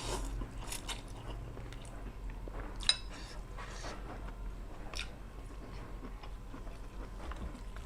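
A person chewing a mouthful of chewy tuna with soft mouth noises and a few small sharp clicks, over a faint steady low hum.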